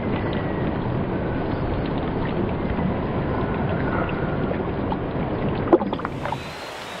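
Stream water rushing and splashing close to the microphone as a rainbow trout is held in the current and released. There is a sharp splash shortly before the end, then the sound drops to a quieter, steady creek flow.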